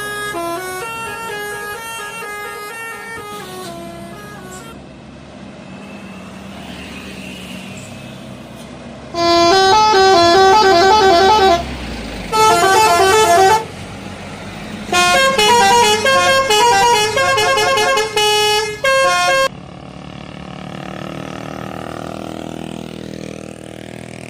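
Bus telolet horns playing quick multi-note tunes: one tune fades out in the first few seconds, and after a quieter stretch of road noise a much louder one sounds in four bursts through the middle, before engine and traffic noise return near the end.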